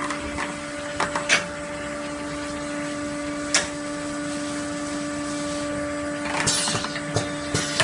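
Automatic liquid filling line with its conveyor running: a steady mechanical hum over a hiss. Sharp clicks or knocks come about a second in and again about three and a half seconds in, and a louder rush of noise comes about six and a half seconds in.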